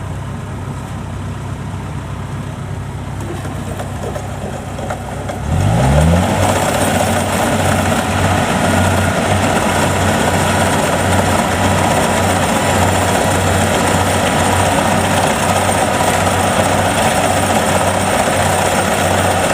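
Kubota DC70 combine harvester's diesel engine running steadily, then revving up sharply about five seconds in and running louder under load with a pulsing low beat, as it works through soft, muddy ground.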